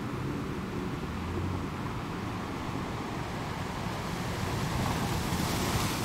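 Steady coastal ambience: a rushing of wind and surf with a fluttering low rumble. It swells louder and hissier about four seconds in and eases off near the end.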